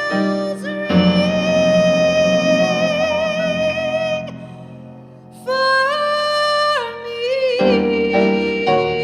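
A woman's voice holding long sung notes with vibrato over piano chords, dipping to a short quiet gap about four seconds in before the voice comes back, stepping up in pitch, and settling on another long note as the piano returns.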